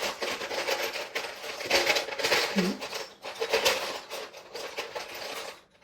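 Loose plastic Lego bricks clattering and rattling as they are rummaged through and handled, a dense run of small clicks that dies away near the end.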